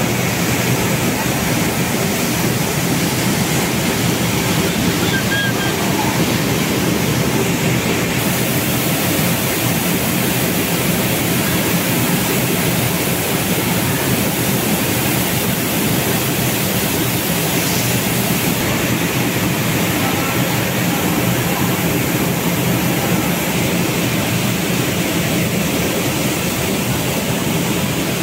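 Rice mill machinery running: a loud, steady rushing noise with a low hum under it.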